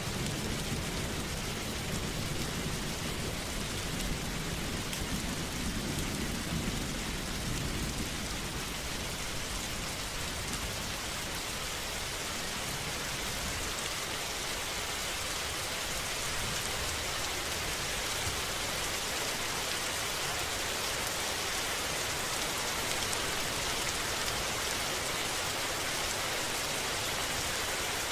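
Steady rain falling, an even hiss. A low rumble of thunder in the first several seconds dies away.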